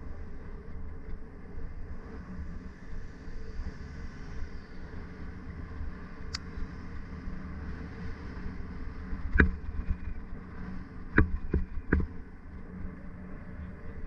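Steady low rumble of a bicycle rolling along a city street, tyre and wind noise on the camera microphone, with a thin tick about halfway and four sharp knocks in quick succession a little later.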